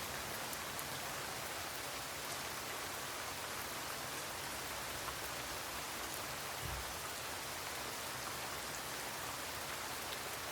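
Steady rain falling, with scattered drop ticks; a brief low thud about two-thirds of the way through.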